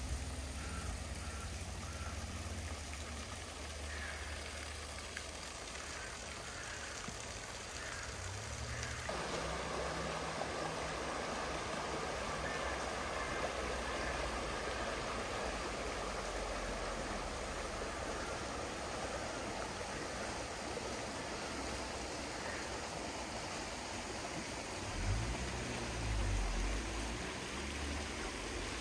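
Steady rush of river water, growing suddenly louder about nine seconds in, with low rumbling near the start and again near the end.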